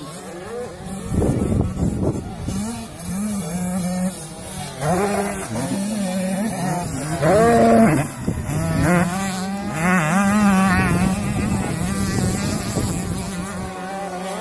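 Motocross dirt bike engines revving hard on a dirt track, the pitch climbing and dropping again and again as the riders work through the gears. One bike passes close and is loudest about eight seconds in.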